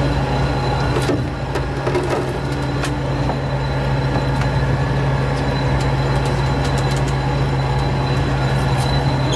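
Fishing boat's engine running steadily, a loud low drone with a thin high whine over it and a few light knocks.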